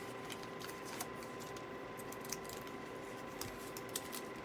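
Faint crinkling and small clicks of a paper gum-stick wrapper being peeled open, over a steady faint hum.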